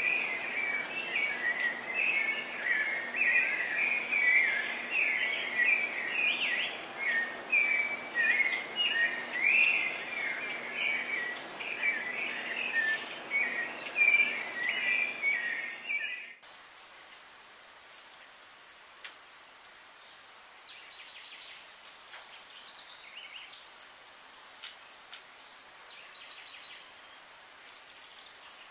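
Dense, rapid bird chirping and chattering for about sixteen seconds. It cuts off suddenly and gives way to a steady, high-pitched insect drone with scattered faint ticks.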